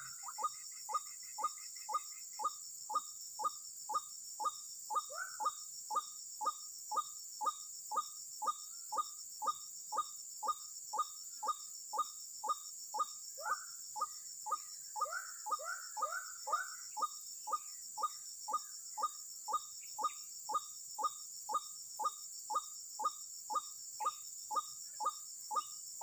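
White-breasted waterhen calls, short falling notes repeated evenly about twice a second, with a few louder, different calls mixed in about 13 to 17 seconds in.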